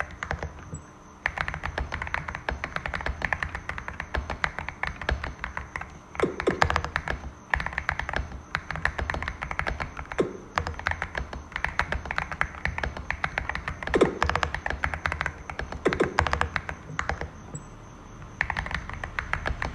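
Fast typing on a Cidoo V65 65% mechanical keyboard with Glorious Panda 67g tactile switches, modded with foam, tape and polyfill for a deeper 'thocky' sound: a dense run of key clacks with a deeper, heavier keystroke every few seconds, pausing briefly near the start and again near the end.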